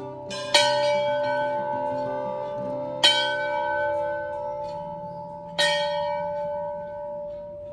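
A metal bell struck three times, about two and a half seconds apart, each strike ringing on and fading slowly, over soft sustained background tones.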